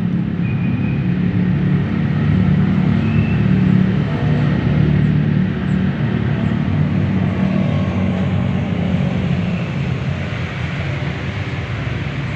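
Car engine running steadily, a low even hum with no revving.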